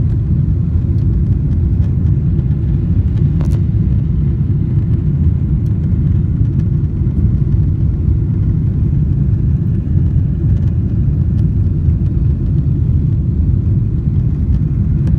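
Steady low rumble of jet airliner cabin noise in flight, the engines and rushing air heard through the fuselage. A faint click sounds about three and a half seconds in.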